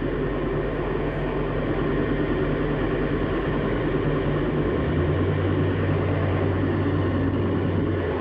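Noise music: a dense, steady wash of noise with low droning tones beneath it. About halfway through, the low drone shifts to a different pitch.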